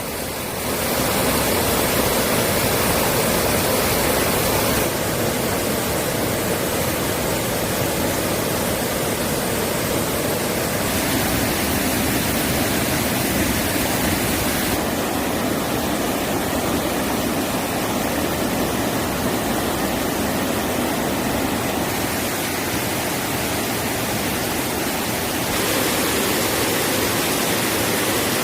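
Mountain stream water rushing over rocks, a loud steady wash of noise. Its tone shifts abruptly several times, about 5, 11, 15, 22 and 26 seconds in.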